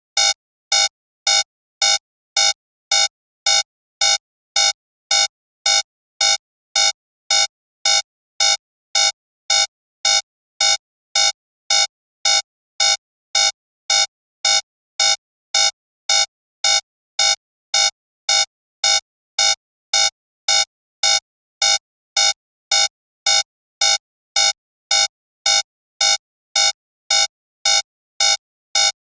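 Digital alarm-clock alarm beeping: short, buzzy electronic beeps at an even pace of about two a second, every beep the same. It signals that the 30-minute countdown has run out.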